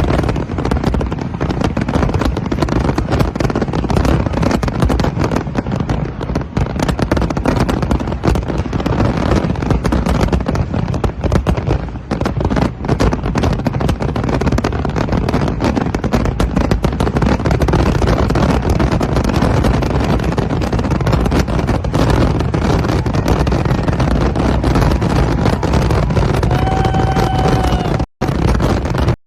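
Fireworks going off in a dense, continuous barrage of bangs and crackling. Near the end a brief pitched tone with overtones sounds over it.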